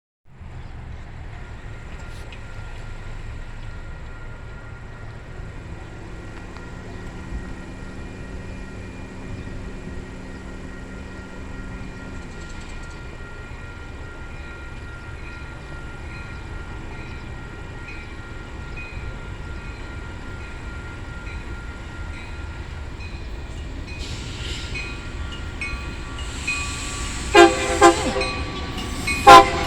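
Union Pacific diesel freight locomotive approaching with a steady low rumble and engine tone, then sounding its air horn in a few short, loud blasts in the last few seconds.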